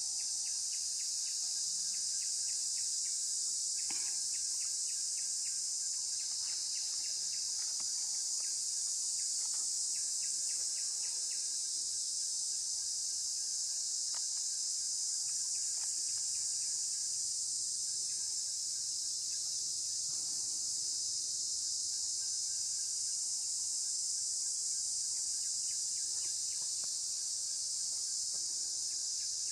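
Steady, high-pitched insect chorus that runs without a break. A lower, rapid ticking call comes in short runs during the first dozen seconds and again near the end.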